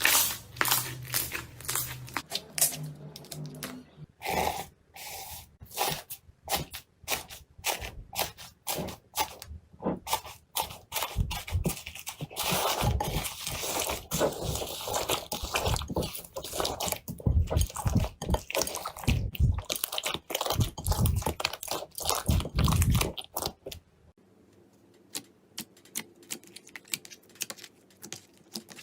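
Crunchy slime being squeezed and pressed, giving a dense run of crackles and pops. The crackling thins out to a few faint clicks about four-fifths of the way through.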